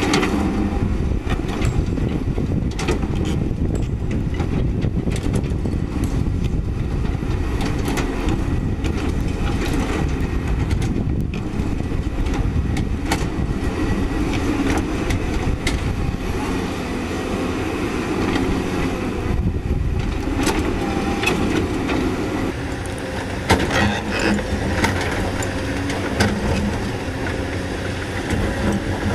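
CAT 320D hydraulic excavator working: its diesel engine runs steadily under load while the steel bucket scrapes and knocks against loose breccia stone, with scattered clanks and rock knocks and a couple of sharper knocks a little before the end.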